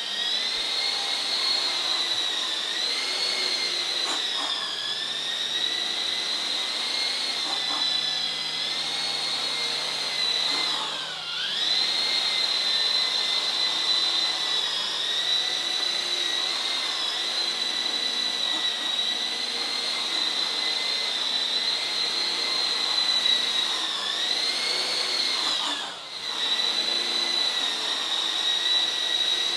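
Coaxial electric RC helicopter's motors and rotors whining in flight, the pitch wavering up and down with throttle. The whine dips sharply and recovers twice, about eleven seconds in and again near the end.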